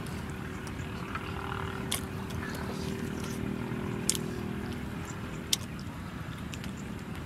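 A person eating roasted chicken by hand: three short, sharp smacks and clicks of chewing over a steady low rumble with a faint steady hum.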